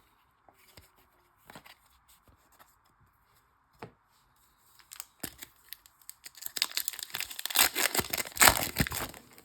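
The foil wrapper of a 2008 Bowman Chrome trading card pack being torn open and crinkled. A dense crackling tear runs from about six and a half seconds in until just before the end, after a few seconds of faint scattered clicks.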